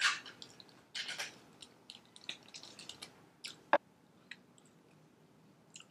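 Quiet eating sounds: a metal spoon scraping and crinkling an aluminium foil tray, with scattered small clicks and crunches, and one sharp knock past the middle as the spoon is set down on a wooden board.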